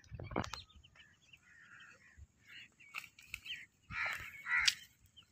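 Crows cawing with other birds calling in short, scattered calls, the loudest about four seconds in.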